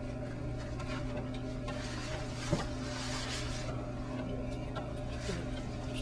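Quiet room tone with a steady low hum and one short knock about two and a half seconds in.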